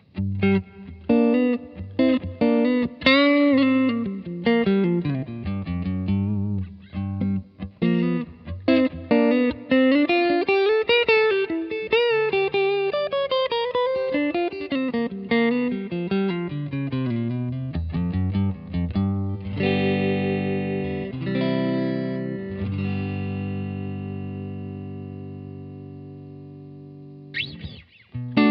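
Mexican-made Fender Telecaster fitted with a Cavalier 'She Wolf' neck pickup, played through a Vintage Sound 22SC amp with spring-style reverb. It plays single-note lines with string bends, then chords that are left to ring and fade out, and picking starts again near the end.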